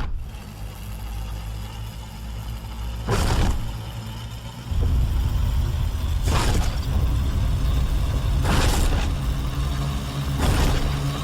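Designed kaiju sound effect: a deep, steady rumble that starts suddenly, with a loud hissing crash about every two seconds.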